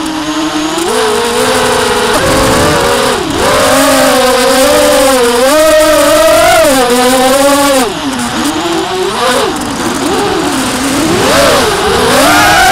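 Electric motors and propellers of a small FPV racing quadcopter, heard from its onboard camera, whining as several close pitches. The pitch swoops up and down with the throttle, dipping about three seconds in and again around eight to ten seconds before climbing near the end.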